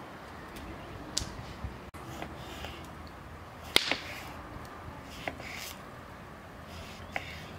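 A few scattered sharp clicks and knocks, the loudest a little before the middle, over soft intermittent rustling.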